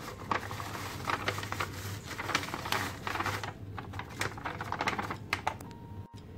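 Dry cookie mix poured and shaken from its paper pouch into a stainless steel bowl: the pouch crinkles and rustles in quick, irregular crackles and taps.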